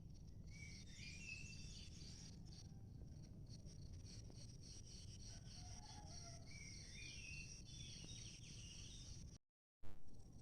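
Insects trilling in a steady high, pulsing chorus, with short bird calls about a second in and again around six to seven seconds, over a faint low rumble. Near the end the sound drops out for a moment, then returns with a sudden loud click.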